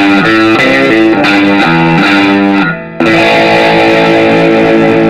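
Loud electric guitar music with distortion: a run of changing notes, a short break just before the three-second mark, then a held chord.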